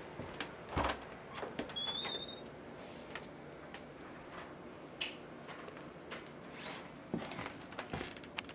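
Scattered light knocks and clicks, with one brief high-pitched squeak about two seconds in.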